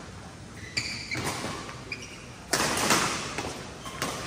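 Badminton rally: sharp racket strikes on a shuttlecock, the loudest about two and a half seconds in, echoing in a large hall, with short squeaks of court shoes on the mat.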